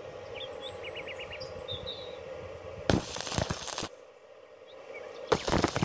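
Stick-welding arc being struck on thin steel tube: two short bursts of crackling, about three seconds in and again near the end, as the electrode catches. Birds chirp faintly in the background.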